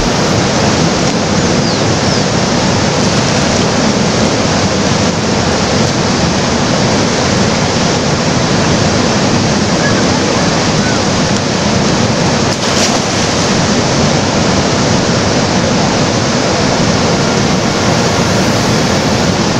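Fast-flowing river rushing past and breaking against a rock at the bank: a steady, loud rush of water.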